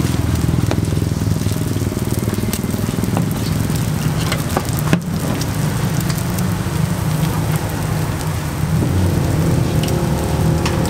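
Ramly burger patties and egg sizzling on a flat-top griddle, with scattered crackling spatters over a steady low rumble.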